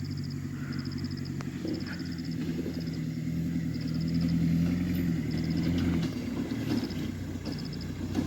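A motor vehicle's engine running slowly, a steady low hum that grows a little louder through the middle and eases near the end.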